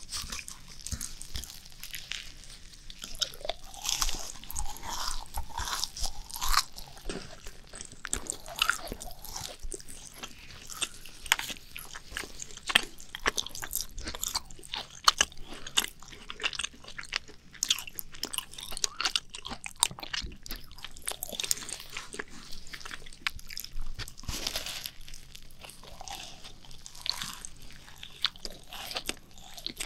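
Macarons being bitten and chewed close to the microphone: the crisp shells crackle and crunch with each bite, followed by chewing, over and over.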